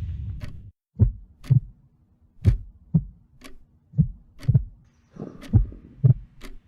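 Heartbeat sound effect: slow low double thumps, one pair about every second and a half, with faint sharp clicks over them. Orchestral music fades out in the first second.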